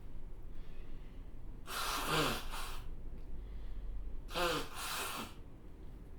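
Sharp gasping breaths of someone on the verge of sneezing: the build-up to a sneeze. They come in two bouts about two and a half seconds apart, each a pair of gasps with the voice sliding down in pitch.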